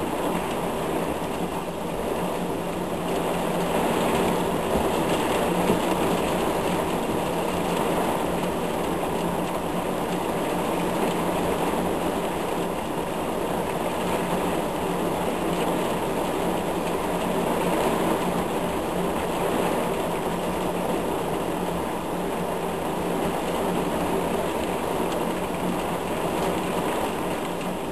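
Heavy rain pouring down steadily in a thunderstorm, a dense even hiss with no break.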